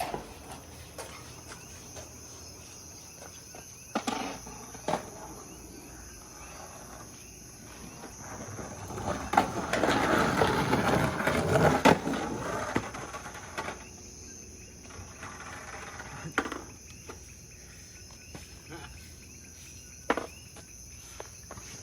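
Eating and handling fast food: scattered clicks and handling noises, with a louder rustling stretch in the middle. A steady high-pitched whine runs underneath.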